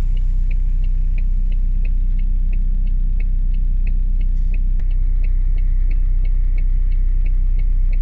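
Car's turn-signal indicator clicking steadily, about three clicks a second, over the low rumble of the engine and tyres heard inside the cabin while pulling out onto the highway.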